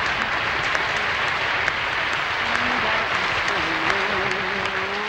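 Audience applauding steadily after a song.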